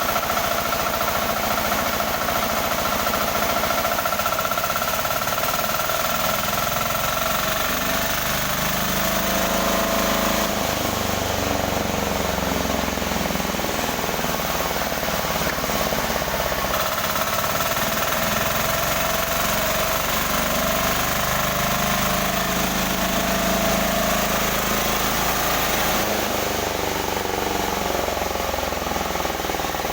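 Newly built sawmill machine running steadily on a test run, a continuous mechanical drone whose pitch shifts a few times.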